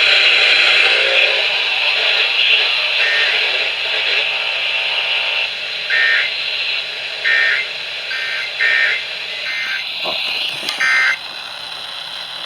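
AM radio hiss and static, with about six short bursts of Emergency Alert System data tones in its two-tone chirp starting about six seconds in: the end-of-message (EOM) codes that close an alert.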